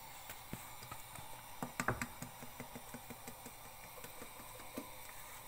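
Light clicks and taps of a wooden spatula against a metal saucepan as a whipped egg mixture is scraped out into a frying pan, with a cluster of louder knocks about two seconds in.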